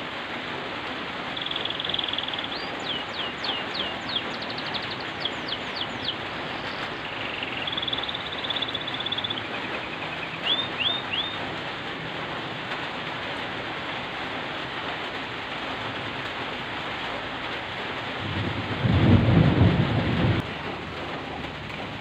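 Steady rain falling, with a bird's short trills and quick falling chirps in the first half. About nineteen seconds in, a loud low rumble lasting about two seconds.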